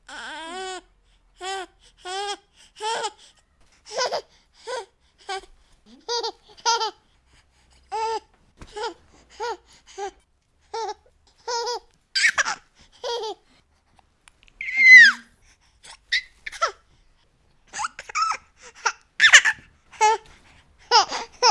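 A baby laughing: short, high-pitched laughs in a string of separate bursts, with a louder squeal about two-thirds of the way through and quicker laughs near the end.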